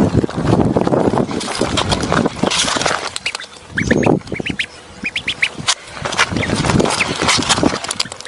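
Duckling peeping: a run of short, high peeps repeated in quick succession from about halfway through. Before the peeps, a rumbling noise of wind on the microphone.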